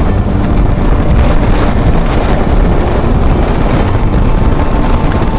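Wind buffeting the camera's microphone while riding a motorcycle, a loud steady rumble with the motorcycle's engine running underneath.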